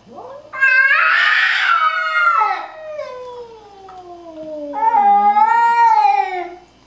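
Two cats facing off and yowling at each other, a territorial warning. Long drawn-out wails, at times two at once, with one gliding slowly down in pitch between the louder cries.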